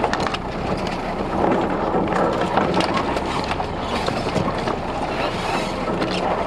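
Land Rover driving slowly over a rough, rutted dirt track, heard from inside the cab. The engine runs under a steady wash of road noise, with constant small knocks and rattles from the body and fittings over the bumps.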